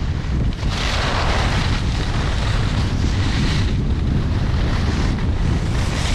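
Wind buffeting the microphone of a skier moving downhill, with a brighter hiss of skis sliding on groomed snow for about three seconds from near the start.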